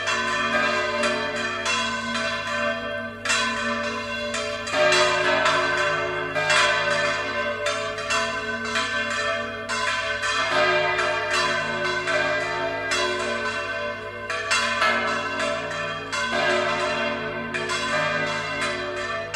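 Church bells swung full circle in the Valencian volteo style, ringing continuously, their tones overlapping, with a heavy strike roughly every two seconds.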